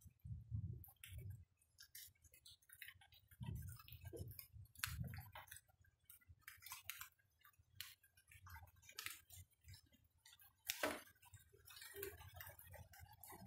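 Rainwater dripping: faint, irregular taps of drops landing on wet surfaces, with one sharper tap about three-quarters of the way through.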